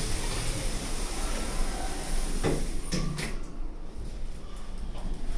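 Lift's sliding doors closing, with a couple of knocks as they shut between two and a half and three seconds in. After that the background hiss drops and the car hums quietly before it moves off.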